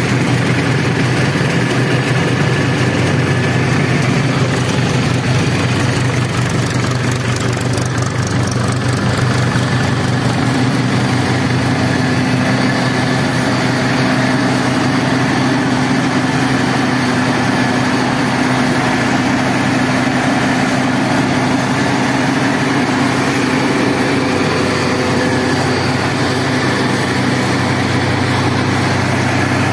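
Tractor diesel engine running steadily at constant speed, driving a groundnut thresher, whose drum and blower run as groundnut plants are fed in. A steady, even drone with no change in speed.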